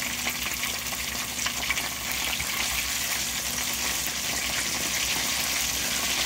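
Chicken wings coated in potato starch deep-frying in hot oil: a steady sizzle thick with small crackles.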